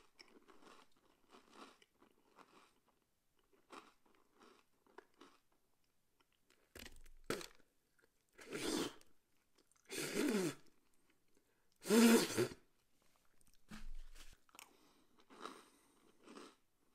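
Mouth chewing crunchy Jolly Rancher cereal, with faint crackles throughout. In the middle come a few louder noises from the throat, the loudest about twelve seconds in.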